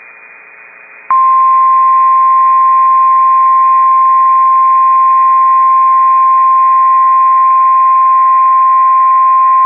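NOAA Weather Radio's 1050 Hz warning alarm tone: one loud, steady tone starting about a second in, after faint radio hiss. It signals that a warning message, here a tornado warning, is about to be read.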